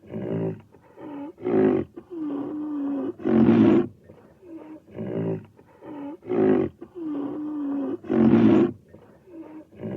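Film-style rhino roar sound effect made from large-animal roars: a series of short roars, a long held bellow and a loudest roar, the same sequence repeating about every five seconds.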